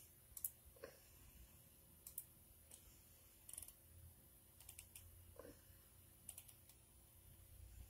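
Faint, irregular clicks in small clusters, as of typing or tapping on a device, with two brief faint squeaks, one about a second in and one past the middle.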